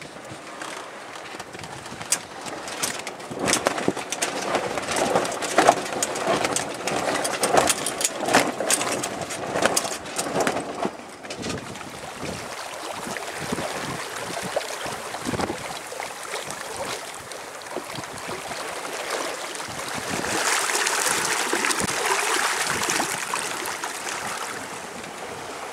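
Wind buffeting the microphone aboard a sailing yacht under way, gusty with many sharp thumps in the first half. Later it gives way to a steadier rush of water churning along the hull, loudest near the end.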